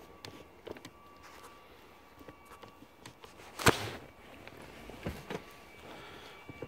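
Scattered clicks and knocks from handling a Toyota Corolla's plastic floor shifter assembly, with one sharp knock about three and a half seconds in and two smaller ones about a second later.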